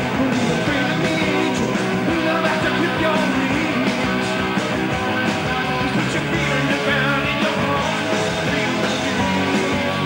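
Rock band playing live, with electric guitars, keyboards, bass and drums driving a steady beat, and a male lead singer belting over it.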